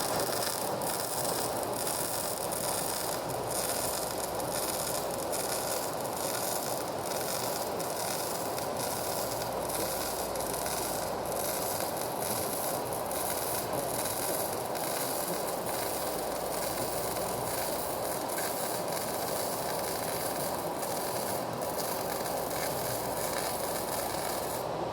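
Electric welding arc crackling steadily through one continuous weld, cutting off suddenly near the end.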